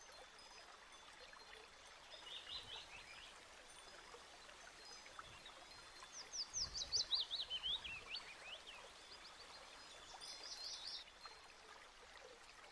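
Running water like a stream with birdsong over it: a short trill about two seconds in, a descending run of quick chirping notes a little past the middle, and another short trill near the end.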